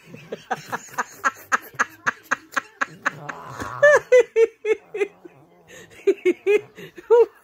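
A person laughing, first in quick breathy snickers, then from about four seconds in in higher-pitched rhythmic giggles, about three or four a second.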